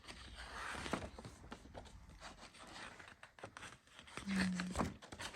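Rustling and scraping handling noise with scattered small clicks, as of paper or a bag being handled, with a brief hummed voice sound a little past four seconds in.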